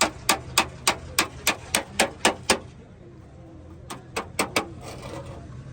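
Hammer tapping out a dent in a car's sheet-metal body panel: a steady run of sharp strikes, about three or four a second for roughly two and a half seconds, then a pause and four quicker strikes near the end.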